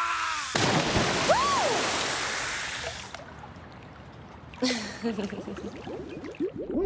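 A loud splash of a body plunging into a swimming pool, the water noise fading out over about two seconds. A short voice follows near the end.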